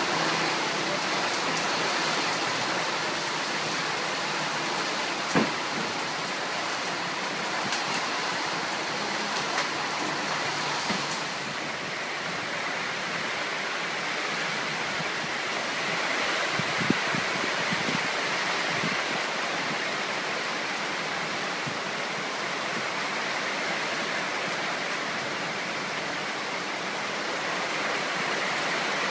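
Steady rain falling, an even hiss of water with a few sharper taps of drops landing close by.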